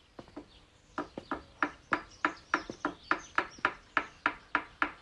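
Small hammer tapping on a wooden canvas stretcher frame: quick, even strikes about three a second, starting about a second in.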